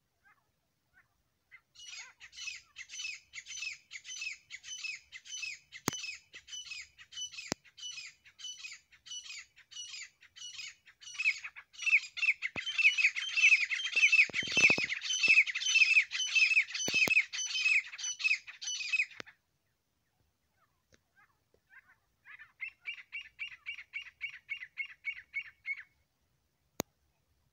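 Grey francolin calling: a long, fast, rhythmic series of harsh, repeated notes at about three a second that grows louder midway and stops suddenly. After a short pause comes a shorter, fainter series.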